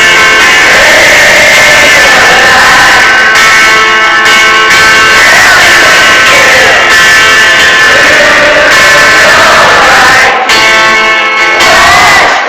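Loud live rock music from a band playing in concert, with guitar prominent.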